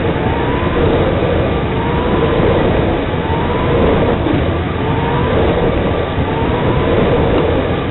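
Onboard sound of a 13.5-turn RC oval truck running flat out on a carpet oval, heard from its roof camera: a loud steady rush of wind and tyre noise, with a faint motor whine that rises in pitch and drops back about every one and a half seconds as the truck goes through the straights and turns.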